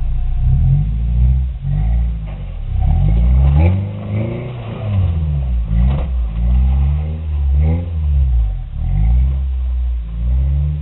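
Off-road rock-crawling truck's engine revving up and falling back again and again as it climbs over boulders, with a few sharp knocks.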